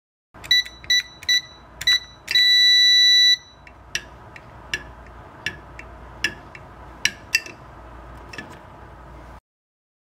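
Stainless SK-1123 access-control keypad beeping four short times as a code is keyed in, then one long beep of about a second as the code is accepted and the output fires the door strike. Then a string of light clicks as the energised fail-secure electric strike's keeper is pushed open and moved by hand.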